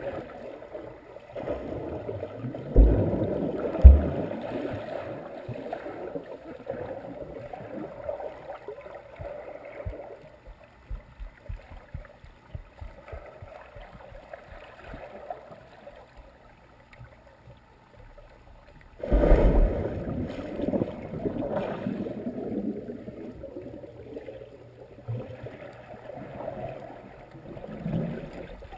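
Swimming-pool water heard underwater through a GoPro's housing: muffled churning and sloshing stirred up by swimmers, with two dull thumps a few seconds in. A sudden louder surge of churning comes about two-thirds of the way through.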